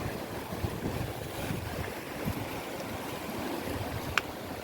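Sea surf washing in, with wind buffeting the microphone, and a single sharp click about four seconds in.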